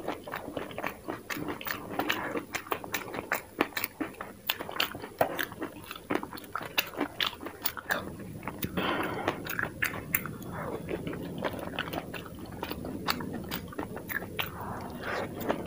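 Close-miked chewing and crunching of dahi puri, the crisp puri shells cracking in the mouth: a dense run of sharp crackles with softer mouth sounds between.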